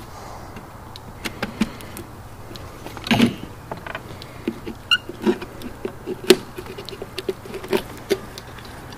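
Irregular hammer taps and metal knocks on the rusted tank of an MCI MC9 bus radiator as it is worked loose from the core, with louder strikes about three, six and eight seconds in.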